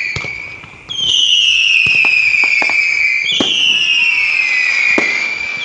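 Whistling fireworks going off one after another: each shrill whistle falls slightly in pitch over about two seconds. A new whistle starts about a second in and another about three and a half seconds in, with sharp pops and cracks between them.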